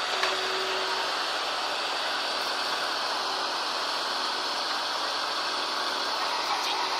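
Tracked excavator's diesel engine running steadily at idle, heard as an even hiss-like drone with a faint steady hum.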